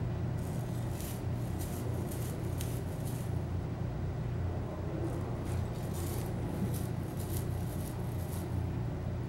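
Aquarium gravel vacuum working underwater: a suction hose with a mesh-screened nozzle drawn over the gravel bed. It gives a steady low hum, with two stretches of crackling hiss, about a second in and again about five seconds in.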